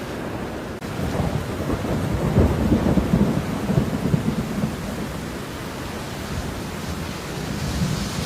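Steady falling rain with a deep low rumble that swells about two seconds in and fades out by about five seconds. The sound drops out briefly just under a second in.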